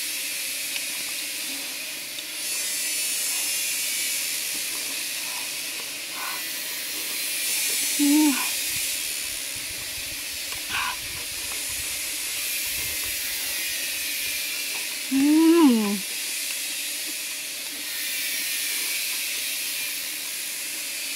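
Steady hiss of flowing river water, with a woman's short appreciative "mm" hums twice while she eats, about eight and fifteen seconds in.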